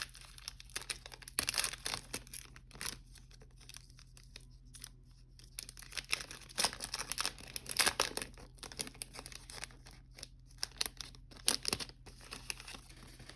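Plastic wrapping on football trading-card packs being torn open and crinkled, in irregular bursts of crackling.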